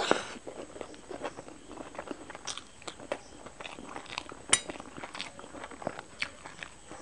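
Close-miked eating sounds: a short slurp of masala noodles at the start, then chewing with many wet mouth clicks and smacks and one sharp click about halfway, and a bite into an egg roll near the end.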